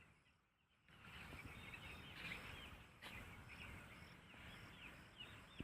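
Faint rural ambience of scattered bird chirps, with a short, high, steady tone repeating about twice a second. Dead silence for the first second.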